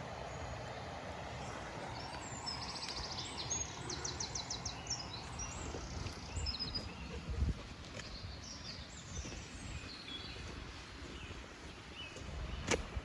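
Small birds chirping and singing, with two rapid trills a few seconds in, over a steady low rumble of wind. A sharp knock near the end.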